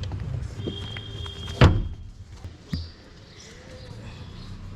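A sharp thump about a second and a half in, then a softer low knock about a second later, over a low steady background hum.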